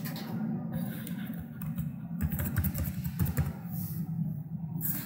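Typing on a computer keyboard: a quick run of irregular key clicks over a steady low hum.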